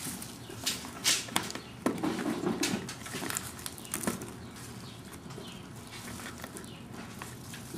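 Hands handling spider plants and plastic drip irrigation tubing: rustling leaves and scattered light clicks, busiest in the first four seconds and quieter after.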